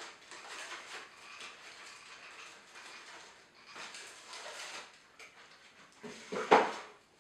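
Clear plastic wrapping on a pair of headphones crinkling and rustling as they are worked free of a cardboard box insert, with one loud rustle about six and a half seconds in as they come out.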